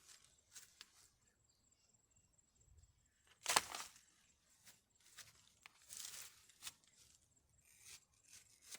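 Scattered rustling and crunching, with one sharp knock about three and a half seconds in.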